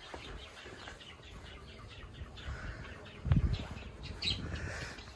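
Small birds chirping repeatedly, short high falling chirps. A brief low thump about three seconds in.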